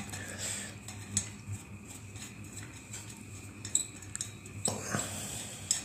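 Screwdriver turning a screw out of a log burner fan, with scattered light clicks and small metal ticks as the tool and fan are handled. A louder handling noise comes just before five seconds in.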